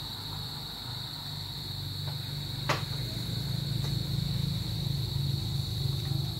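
A steady, high-pitched insect drone of crickets or cicadas runs over a low rumble that grows louder after about two seconds. A single sharp click comes a little under three seconds in.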